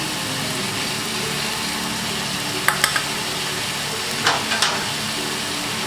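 Onion, ginger-garlic and tomato masala sizzling in a frying pan as the spices are cooked down, over a steady low hum. A spatula clicks against the pan a couple of times near the middle and scrapes briefly about four seconds in.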